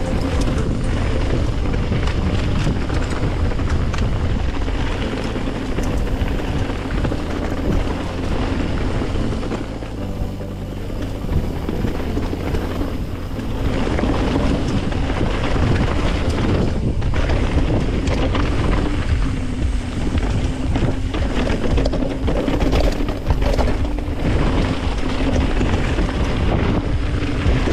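Mountain bike riding fast down a rough, chunky dirt trail: steady wind rush on the microphone over tyre noise, with frequent short rattles and knocks from the bike over rocks and roots. It eases off briefly about ten seconds in.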